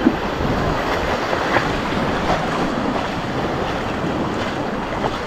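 Small sea waves washing up on a sandy shore with wind buffeting the microphone, a steady rushing noise, with a few light splashes as people wade through the shallow water.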